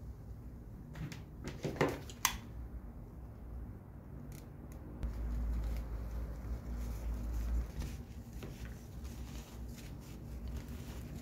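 Scissors snip jute twine, with a few sharp clicks about two seconds in. Gloved hands then handle and rub the twine and rope, and a low rumble runs for a couple of seconds in the middle.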